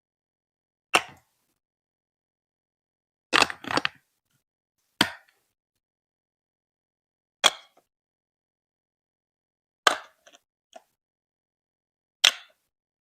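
Sharp single clacks of hard pieces knocking together on a Lego Duplo marble run, one every two to three seconds, with a quick cluster of clacks about three and a half seconds in. There is dead silence between the clacks.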